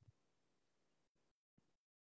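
Near silence: faint room tone that drops out to dead silence a couple of times in the second half, with a faint low thump at the very start.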